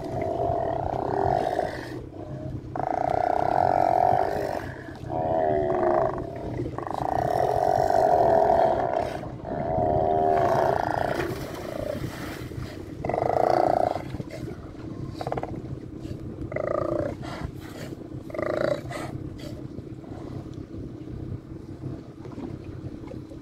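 Several Steller sea lions roaring: loud, drawn-out bellows, each a second or two long, following one another closely and thinning out to a few fainter calls in the last several seconds, over a steady low hum.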